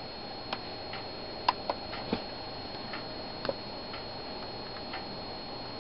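Panasonic Toughbook CF-47 laptop hard drive clicking irregularly, about once or twice a second, as the machine boots. The owner fears these clicks are the sign of a dying drive. A steady high-pitched whine from the recording camera runs underneath.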